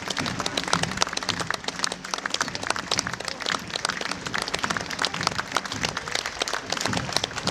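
A large crowd clapping and applauding steadily, many hands at once.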